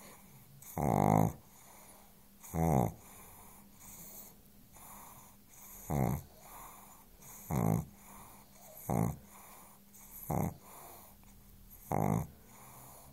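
A sleeping pug snoring: seven loud, buzzy snores about every one and a half seconds, with quieter breathing between them. The first snores are longer and the later ones shorter.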